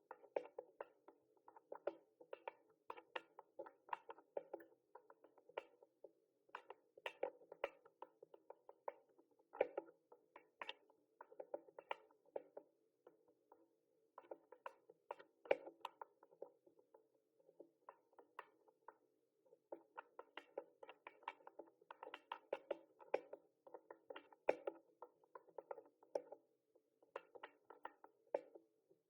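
Mechanical keyboard typing: quick, crisp key clicks in runs of several seconds, with brief pauses between the runs.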